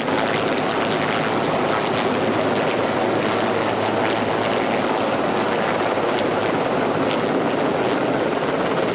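Hovering rescue helicopter's rotor and engines running with a steady, loud noise and a low hum beneath it.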